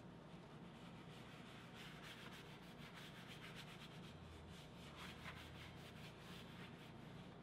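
Faint, quick back-and-forth scrubbing of a paper towel over carved, dyed leather, about five strokes a second, as excess dye is wiped off. A steady low room hum lies underneath.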